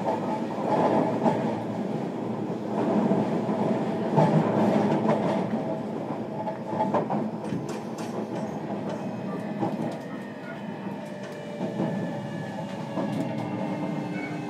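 Running noise from under a JR Kyushu 305 series electric train's motor car, heard from directly above the brake controller: steady wheel-on-rail rumble with repeated clicks over the rail joints. Faint steady high whine tones come in about two-thirds of the way through.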